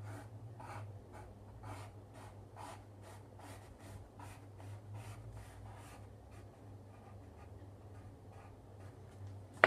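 Coloured pencil scratching on paper in quick short strokes, about three a second, as spiky leaves are drawn in dark green. The strokes grow fainter in the last few seconds.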